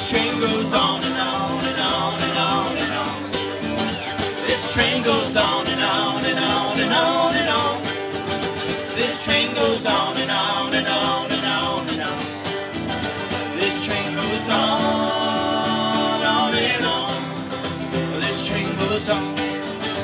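Live acoustic country/bluegrass band: mandolin and two strummed acoustic guitars, with several voices singing together and a long held chord near the end.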